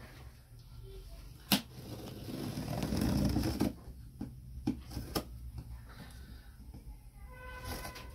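Box cutter slicing and scraping along the packing tape on a cardboard box seam, a rasping stretch in the middle, with a sharp click about a second and a half in and a few lighter clicks around four to five seconds.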